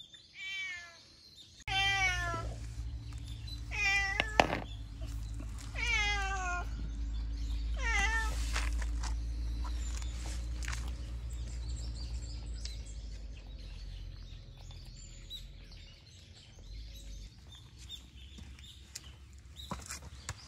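Stray cat meowing repeatedly, about five drawn-out meows roughly two seconds apart in the first nine seconds, over a steady low hum.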